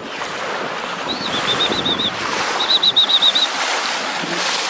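Steady rush of sea water and wind around a moving boat. Two quick runs of high chirps come through it, about a second in and again around three seconds in, each six or seven chirps long.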